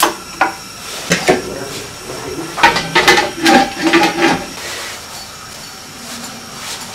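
Kitchen clatter of a steel wok and porcelain bowls being handled: a few sharp knocks, then a run of clinks and knocks with short ringing tones in the middle. A gas stove burner hisses steadily underneath.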